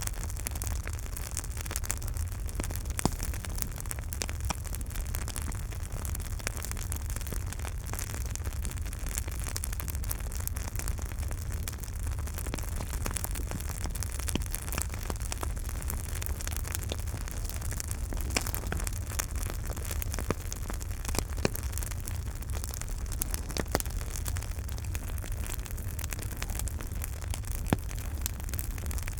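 Campfire burning with a steady low rumble and hiss, crackling and popping irregularly, with a few sharper pops.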